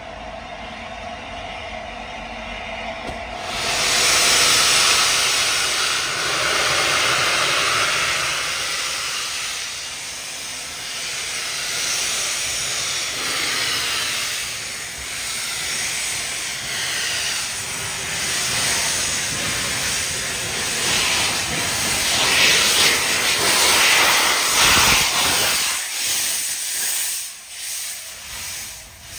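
LNER A4 steam locomotive 60007 Sir Nigel Gresley blowing off steam at platform level, most likely from its open cylinder drain cocks: a loud hiss that starts suddenly about three and a half seconds in, pulses unevenly as the engine moves, and falls away near the end.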